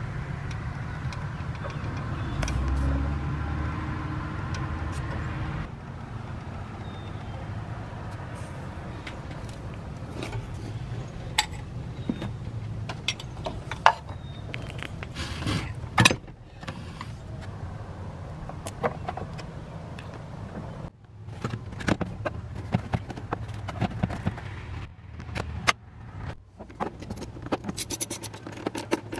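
Hand tools clinking and knocking against metal engine parts while the serpentine belt tensioner is released and parts are refitted: many short sharp clicks over a steady low hum, with abrupt shifts in the background where the footage is cut.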